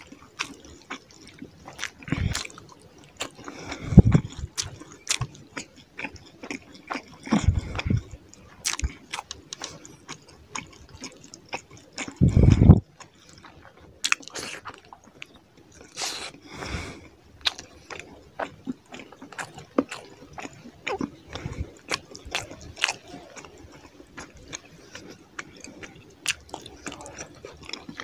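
Close-miked wet eating sounds: chewing and lip smacking as fish curry and rice are eaten by hand, in many short clicks. A few louder low thumps stand out, the strongest about twelve seconds in.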